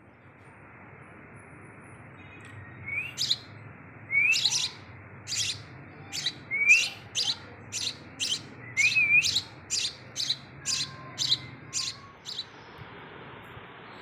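Sparrow chick begging with its beak open: about fifteen short, loud, high chirps, some starting with a quick upward sweep, starting about three seconds in, coming faster toward the end and stopping about a second and a half before it ends, over a steady hiss.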